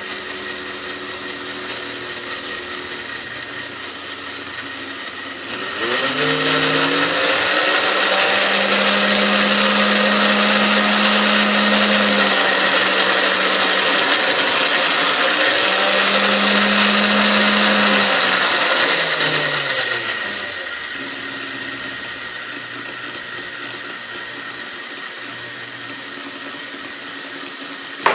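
Hamilton Beach Model D stand mixer's motor running, stepping up to a higher speed about six seconds in and dropping back to a slower speed near twenty seconds, while its speed setting is being adjusted.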